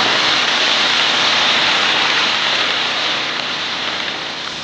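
Small river shrimp deep-frying in hot oil: a loud, steady sizzle that slowly dies down as the frying settles.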